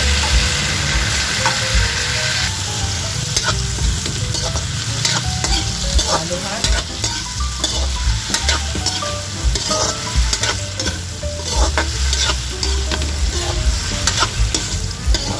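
Whole raw shrimp sizzling in melted butter with garlic and onion in a wok while being stirred, with frequent clicks and scrapes against the pan. The sizzle is loudest for the first couple of seconds, then settles under the stirring.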